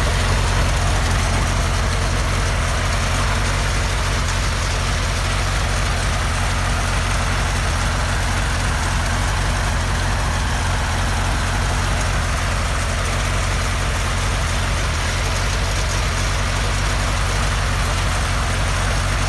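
Homemade helicopter's engine running steadily at a constant speed.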